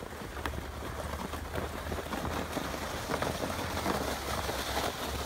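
Plastic sled being towed over packed snow and ice, its bottom scraping continuously with small crackles, over a low rumble.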